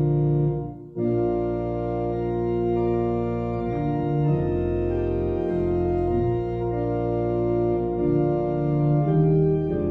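Church organ playing a hymn in sustained chords, with a brief pause about a second in between phrases.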